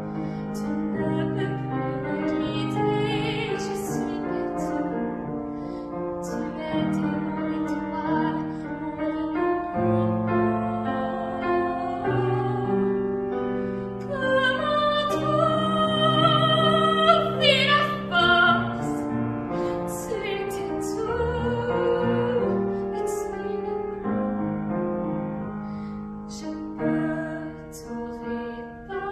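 A female voice singing a ballad over piano accompaniment, with long held notes that waver in vibrato; the voice grows loudest and highest around the middle, then eases back.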